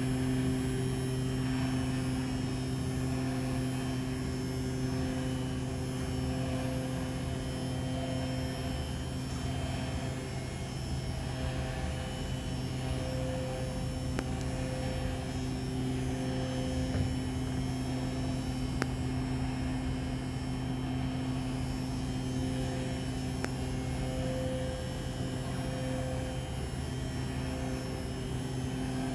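Mechanical string vibrator (PASCO SF-9324) driven by a sine wave generator at 129 Hz, giving a steady buzzing hum with overtones. The higher overtones waver in strength.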